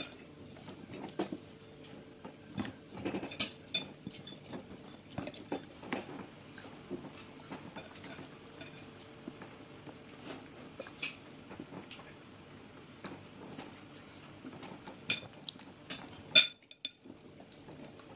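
A metal fork scraping and clinking against a plate as a small child eats, with irregular clicks and a few sharper clinks toward the end. A faint steady hum runs underneath.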